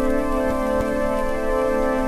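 Soundtrack music of held organ chords, changing chord now and then.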